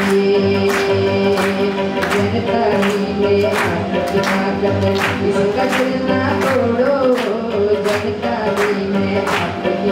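Tabla and harmonium accompanying singing, with steady held harmonium notes under the voices. Hand claps keep a steady beat, about three every two seconds.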